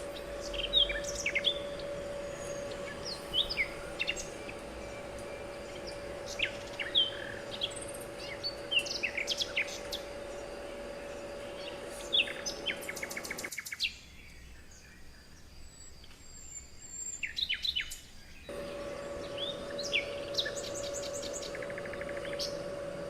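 Small birds chirping repeatedly, with short rapid trills now and then, over a steady low hum. The hum and background noise drop out for a few seconds in the middle while a few chirps continue.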